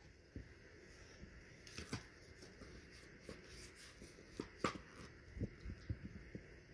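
Cardboard puzzle pieces being handled and pressed together on a cardboard box: faint scattered taps and rustles, with one sharper tap a little past halfway.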